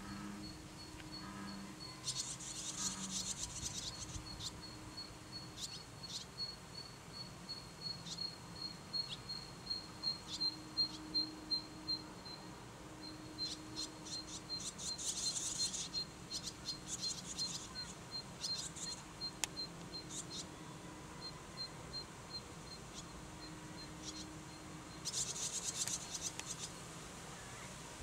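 A steady series of short, high ticks, a few each second, broken three times by bursts of dense, buzzy high-pitched chirping lasting a second or two.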